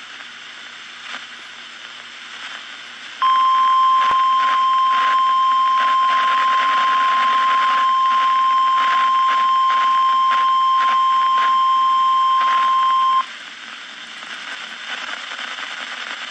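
NOAA Weather Radio warning alarm tone: one steady high tone near 1 kHz that starts about three seconds in and cuts off after about ten seconds. It sounds over the receiver's constant static hiss and crackle.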